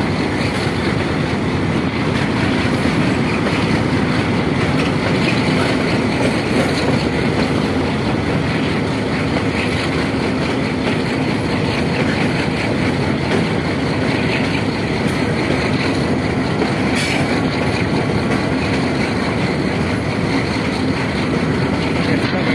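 Passenger train running steadily, heard from inside a coach: a continuous, even noise of wheels on the track.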